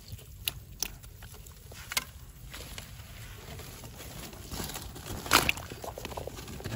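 Rustling and crackling as a mesh fish trap with cane hoops is handled and shaken out over dry grass and a woven plastic basket, with a few sharp clicks and a louder rustle about five seconds in.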